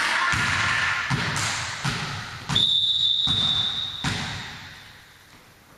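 A volleyball bounced a few times on the hard gym floor, each bounce a dull thump, then the referee's whistle blows one steady note of about a second and a half to authorise the serve.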